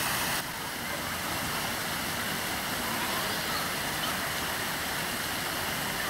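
Water from an artificial rock waterfall splashing down several small cascades into a pool: a steady, even rush. About half a second in the sound changes abruptly and becomes a little quieter.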